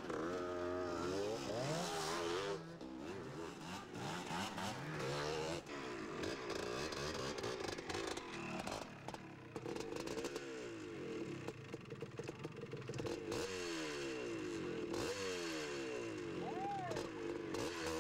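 Off-road enduro motorcycles revving as they ride past, their engine pitch rising and falling. Several bikes are often heard at once.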